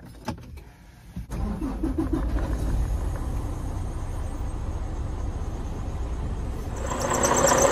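A semi-truck's diesel engine is started from the cab. The starter cranks briefly and the engine catches about a second and a half in, then settles into a steady, low idle. Near the end it gets louder, with a high whine.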